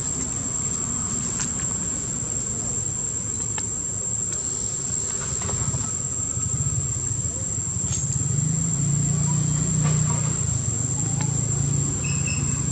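Steady high-pitched insect drone, with a low engine hum of a passing motor vehicle swelling in the second half.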